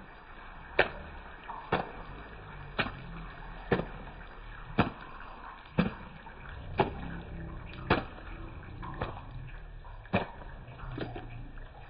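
Sharp knocks about once a second over a low steady hiss.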